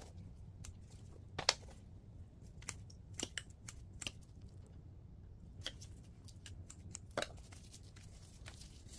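Small pruning scissors snipping flower stalks off potted marguerite daisies: irregular sharp snips, about a dozen, the loudest about a second and a half in and just after seven seconds.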